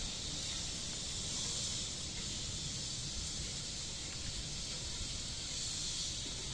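Steady hiss with a low rumble underneath and no distinct events.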